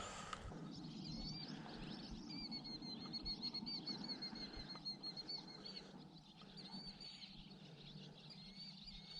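A bird singing outdoors: a long run of quick, wavering high notes repeated several times a second, fading out near the end.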